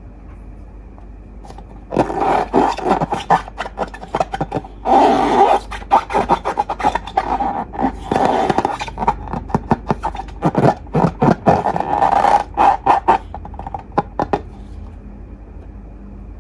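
Slime being squeezed and worked by hand, a run of wet crackles, squelches and scraping in several bouts from about two seconds in until near the end.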